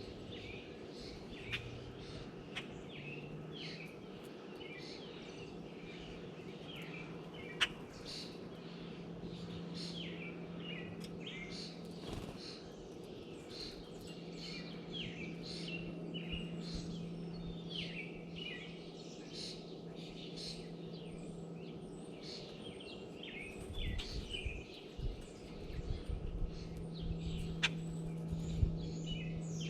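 Many small birds chirping and calling in quick, overlapping notes around a tray feeder, over a steady low hum. A few sharp taps stand out, one about a third of the way in and a couple near the end.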